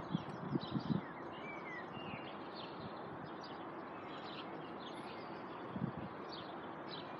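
Small birds chirping and twittering, with one short gliding whistle about a second and a half in, over steady outdoor background noise. A few soft low bumps come in the first second and again about six seconds in.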